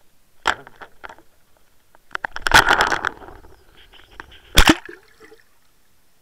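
Water splashing around an underwater line camera as it breaks the surface, with clicks and knocks on its housing. The longest, loudest splash comes a couple of seconds in, and a single hard knock follows a couple of seconds later.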